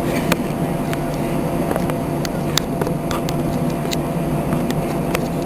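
Steady hum of an airliner's running engines and airflow heard inside the flight deck, with scattered sharp clicks and rattles.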